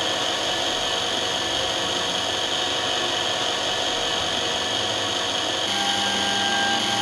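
Small high-speed drill motor of a computerised eyeglass-lens drilling machine (24 W, 17,000 rpm) running steadily while boring a hole in a lens. Its tone shifts slightly about six seconds in.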